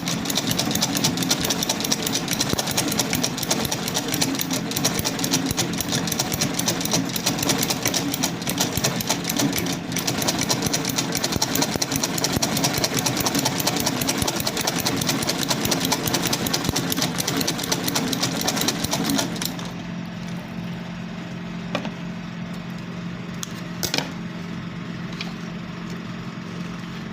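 Domestic sewing machine with a buttonhole attachment stitching, a fast, even clatter of the needle mechanism over its motor. About twenty seconds in it drops to a quieter steady hum with a few separate clicks.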